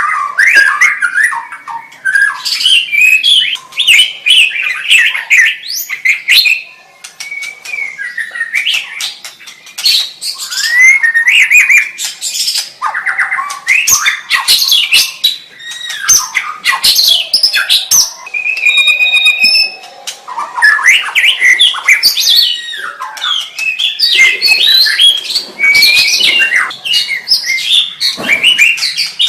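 White-rumped shama (murai batu) singing a long, varied song of quick whistled phrases, rising and falling sweeps and harsh chattering notes, with a short pause about a quarter of the way in.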